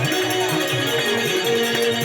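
Adivasi folk music from a songadya band playing a rodali song: an instrumental passage of held melody notes over a steady, repeating beat.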